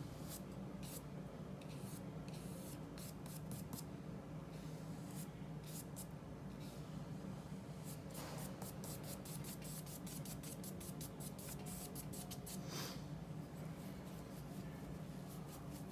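Paintbrush stroking oil paint onto black-gessoed paper: a series of short scratchy swipes, coming in a quicker back-and-forth run in the second half, over a steady low hum.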